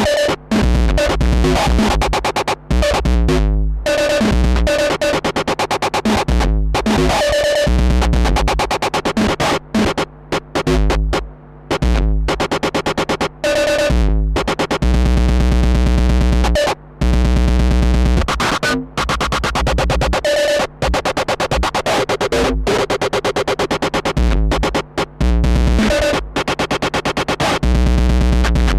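Roland TR-6S drum-machine beat played through heavy analogue distortion and overdrive, chopped by the step looper into stuttering repeats with sudden drop-outs and restarts. The sound is harsh and gritty, with deep booming bass stretches between the stutters.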